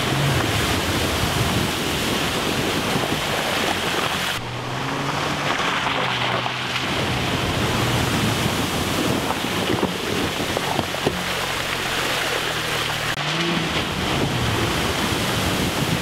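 SUV driving through muddy puddles on a dirt trail: a steady rush of water spraying from the tyres, with the engine note rising and falling a few times and wind on the microphone.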